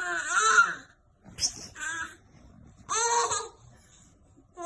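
A baby making high-pitched squealing and babbling vocal sounds in three short bursts. The first and loudest comes right at the start, a shorter one comes about a second and a half in, and another comes around three seconds in.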